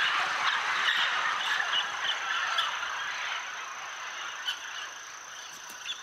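A large flock of parrots and macaws calling together in a dense chatter that slowly fades away. A thin, steady, high insect-like whine runs underneath.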